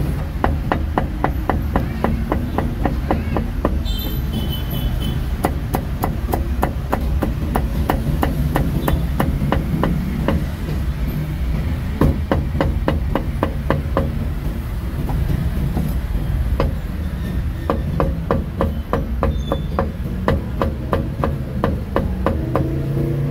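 A cleaver chopping roast meat on a chopping block in rapid, regular strokes, over a steady low rumble.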